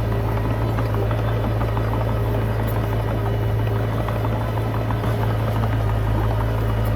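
Komatsu D20P bulldozer's diesel engine running steadily with a constant low drone.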